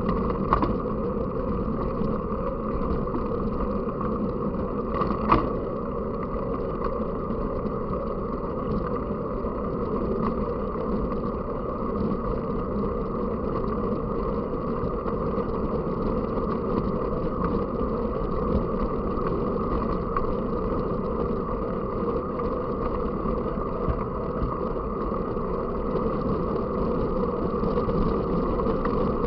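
Steady rumbling riding noise from a moving mountain bike, tyres and wind on the camera, with two sharp knocks: one about half a second in, another about five seconds in.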